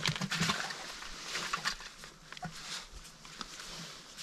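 Irregular rustling and small clicks of gloved hands handling a freshly caught perch at a bucket.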